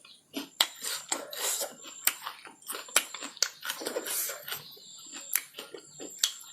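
A person chewing fatty pork close to the microphone: wet mouth smacks and chewing sounds with many sharp, irregular clicks.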